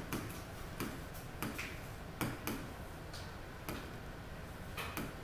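Stylus or pen tapping on the glass of an interactive touchscreen display while numbers are written: about ten sharp, irregularly spaced clicks.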